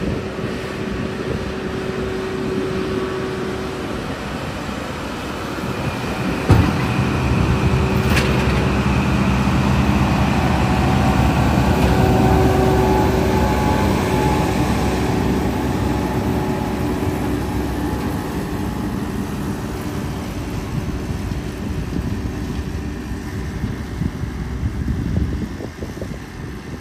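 John Deere tractor engine running under load as it pulls a McHale V6 round baler picking up hay, with the baler's machinery running alongside. It grows louder as it passes close, about midway, then fades as it moves off. There is a sharp knock about six and a half seconds in.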